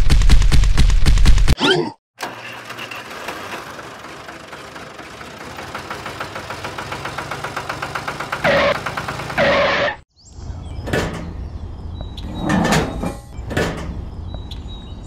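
Tractor engine: a loud start-up burst, then a steady rhythmic chug that grows louder. About ten seconds in it gives way to light clicks and knocks of plastic toy trolleys being handled and hitched together.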